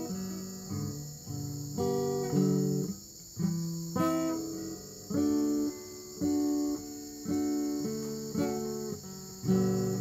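Background music: an acoustic guitar picking a slow melody of notes that each start sharply and fade, over a steady high-pitched chirring.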